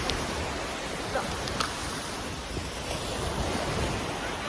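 Steady wash of ocean surf and wind, with wind buffeting the microphone in a low rumble.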